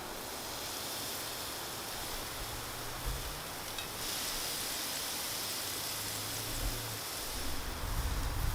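Chicken thighs sizzling on a barbecue grill: a steady hiss that grows slightly louder about four seconds in.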